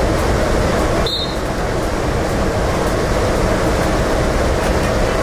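Steady, loud rushing noise with no clear pitch, with a brief high tone about a second in.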